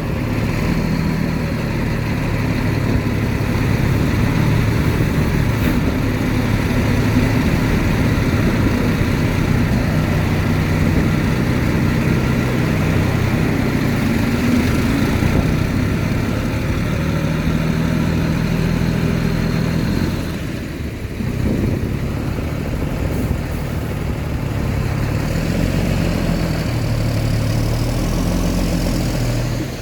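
Heavy diesel earthmoving machinery, a bulldozer or dump truck, running steadily with its engine note shifting under changing load, easing briefly about two-thirds of the way through.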